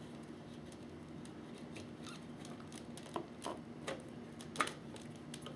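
Faint clicks and light handling noises as wires and small plastic parts are pushed into a model submarine's hull compartment, over a faint steady hum. The clicks come scattered through the second half, the sharpest near the end.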